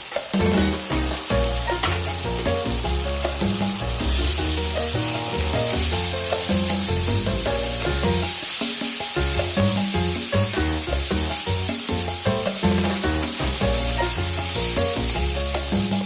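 Food frying in hot oil in a pan with a steady sizzle and stirring, the sizzle growing louder about four seconds in, over background music.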